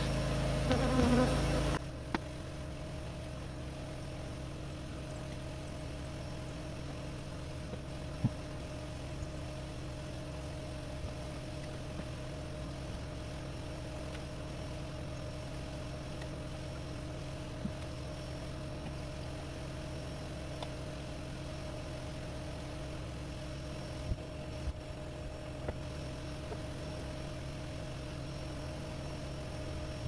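Honeybees buzzing steadily around a freshly exposed feral hive in a wall cavity, with a few faint clicks.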